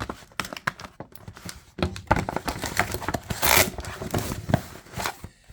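A cardboard package being cut and opened with a folding knife: a busy run of clicks, knocks and rustles of cardboard and packing, with one louder, longer tearing sound about three and a half seconds in.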